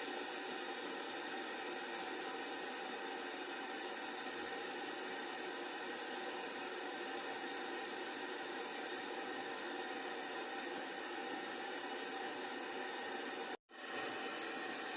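Steady, even hiss of aeroplane noise with no change in pitch, cutting out for a split second near the end and coming straight back.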